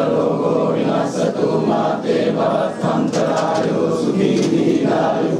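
A group of Buddhist monks chanting verses together, many voices overlapping in a steady, unbroken drone of chant.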